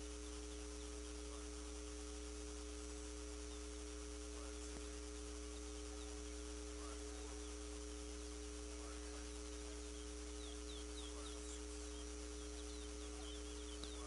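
Faint, scattered short chirps and whistled notes from caged towa towa birds, coming in quick runs about ten to thirteen seconds in, over a steady hum.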